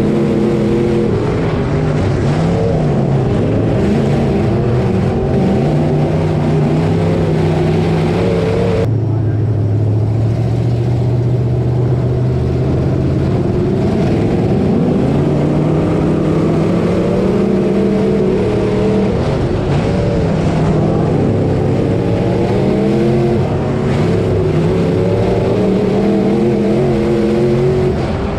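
Engine of a dirt-track Hotmod race car heard from onboard, its pitch rising and falling as the throttle is worked. About nine seconds in, the sound suddenly turns duller and the engine holds a steady low note for several seconds before it starts rising and falling again.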